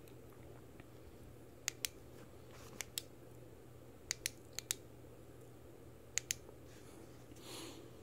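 Coast PolySteel 250 flashlight being handled and clicked: about half a dozen short, sharp clicks, mostly in quick pairs, with a soft rustle near the end.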